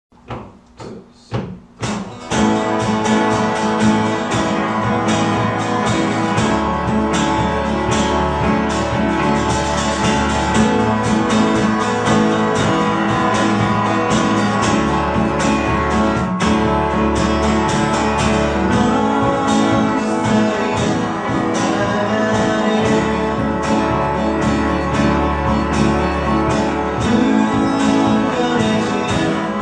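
Acoustic guitar and piano playing a slow song. It opens with a few separate strummed chords, and the full accompaniment comes in about two seconds in.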